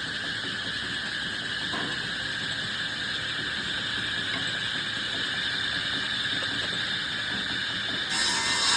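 Woodworking machinery running with a steady high whine and hiss. A little before the end the sound suddenly gets louder and brighter.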